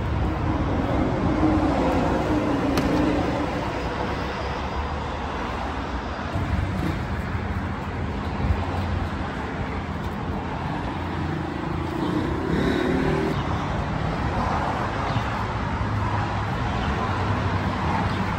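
Steady rumble of vehicle engines and road traffic, with a couple of short rises in engine pitch.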